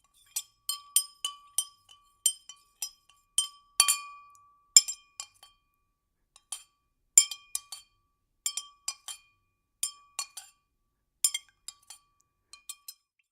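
A spoon stirring liquid in a glass, clinking against the glass about twice a second, irregularly. Each clink leaves a brief bright ring, and the stirring pauses for a moment about halfway through.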